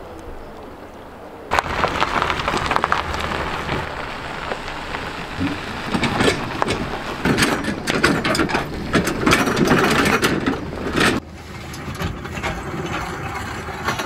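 A raft trailer being hauled over a rocky gravel bar: a loud run of rattling, clattering and stones crunching under the wheels, starting suddenly about a second and a half in and dropping away near the end, after a short stretch of steady river rush.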